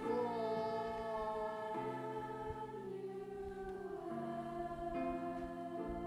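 Mixed choir singing sustained chords, the harmony changing about every two seconds.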